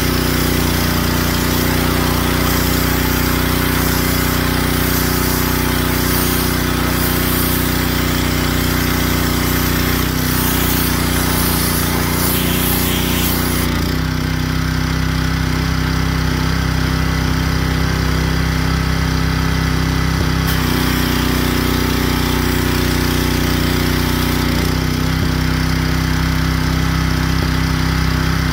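Gas-engine 3,000 PSI pressure washer running steadily, with the hiss of its high-pressure spray on concrete for roughly the first half. The spray stops about halfway through, comes back briefly a little later, and the engine runs on throughout.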